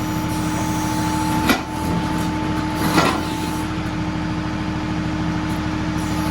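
John Deere 2038R compact tractor's three-cylinder diesel engine running steadily, with two sharp knocks about a second and a half apart.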